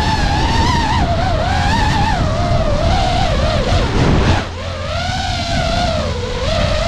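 DJI FPV drone's motors and propellers whining in flight, heard close up from a camera mounted on the drone, with the pitch wavering up and down with throttle over a low rumble. About four seconds in the whine dips and a brief rush of noise sweeps through, then the whine carries on steadier and slightly lower.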